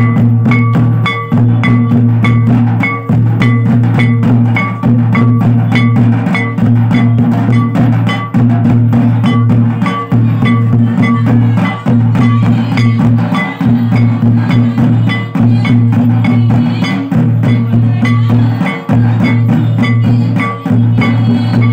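Santali folk drums, tamak' kettle drums and tumdak' barrel drums, beaten in a fast, steady dance rhythm that repeats in a cycle about every second and three quarters, with short ringing accents over a booming low end.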